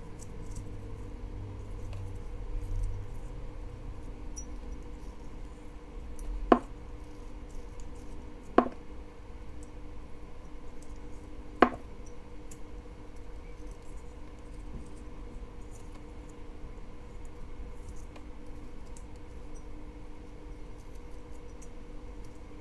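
Carving knife whittling a small basswood figure: a run of faint small cutting and scraping ticks, with three sharp clicks a few seconds apart around the middle.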